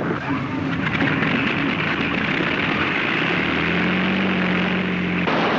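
Avro Lancaster bomber's piston engines droning steadily, with a low steady hum joining about three seconds in. The sound changes abruptly just before the end.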